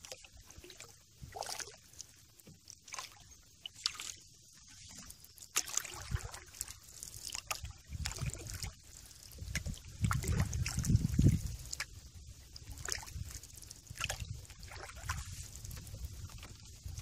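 Paddling a canoe: water splashing and dripping from the paddle in scattered small splashes, with heavier sloshing about eight seconds in and again from about ten to eleven seconds.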